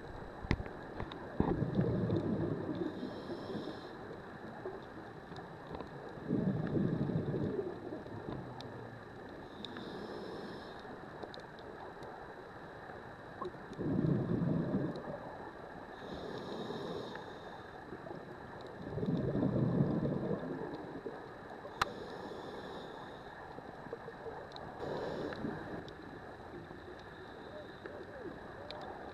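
Scuba diver breathing through a regulator underwater: a bubbling exhale rumble roughly every six seconds, each followed a few seconds later by a short hissing inhale.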